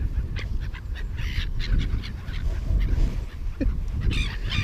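A flock of seagulls calling: scattered short cries and squeals over a steady low rumble, with a brief rising call near the end.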